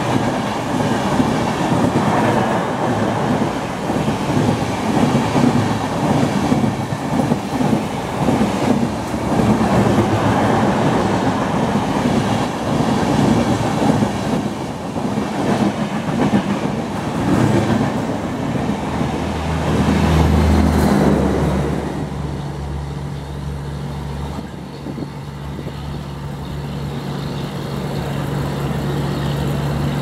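Rajdhani Express passenger coaches speeding past close by: a loud rush of wheels on rail with clattering over the joints. After about 20 seconds the clatter gives way to a steady low hum as the end of the train passes and it moves away.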